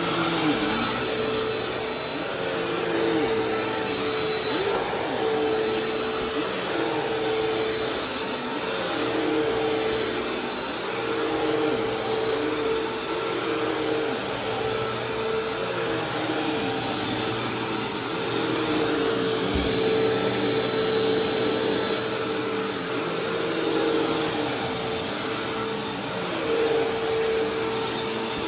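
Bissell vacuum cleaner running on new carpet: a steady motor whine over airflow noise, with a lower note that wavers up and down and loudness that swells gently every few seconds as it is worked back and forth.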